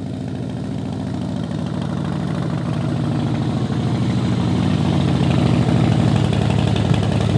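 Harley-Davidson Softail Slim's V-twin engine running as the motorcycle rides up, growing steadily louder as it comes closer.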